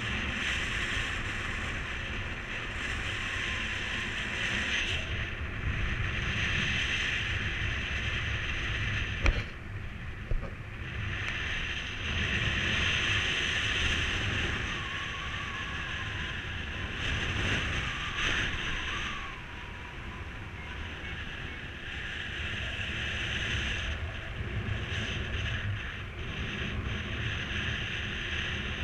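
Airflow rushing over the microphone of a paraglider in soaring flight, rising and falling as the air moves, with a single sharp knock about nine seconds in.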